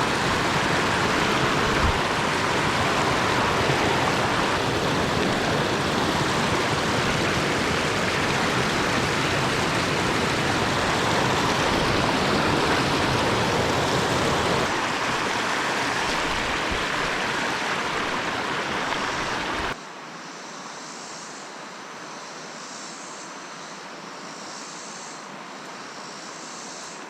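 Loud steady rush of river water running over a riffle. About two-thirds of the way through it cuts off abruptly to a much quieter background with a faint, high pulsing buzz.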